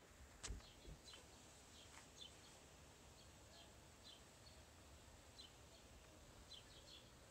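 Near silence with a soft thud about half a second in, as a cat drops through an empty desk frame onto carpet, followed by a couple of fainter knocks. Faint, high bird chirps repeat throughout.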